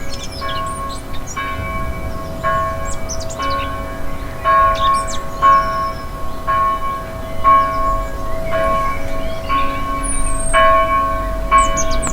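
Church bell ringing in a steady rhythm, struck about once a second, each stroke ringing on into the next. Birds twitter with short high chirps over the bell.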